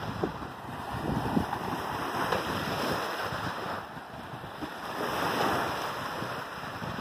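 Small waves washing in on a sandy beach, swelling and fading, with wind gusting over the microphone.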